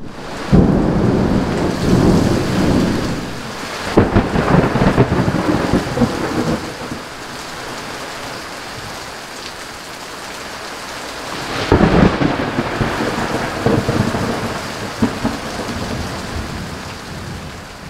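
Heavy rain pouring steadily in a thunderstorm, with thunder rumbling in three long rolls: about half a second in, around four seconds in, and again about twelve seconds in.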